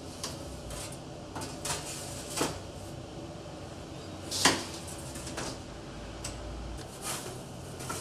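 Metal clanks and scrapes at a stainless-steel Karacasan pizza deck oven: a steel peel knocking against the oven mouth and the door being worked by its handle. There are several short clanks, the loudest about halfway through.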